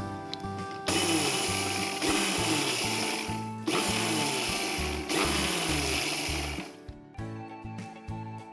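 Electric mixer grinder with a small steel jar running in three short pulses, grinding dry-roasted fennel, coriander and carom seeds into powder. It starts about a second in and stops near the end.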